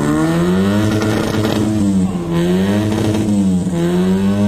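Classic Mini's four-cylinder A-series engine revved hard through a loud performance exhaust, the engine note climbing and dropping about three times in repeated blips. The run reads 119.6 on the sound meter.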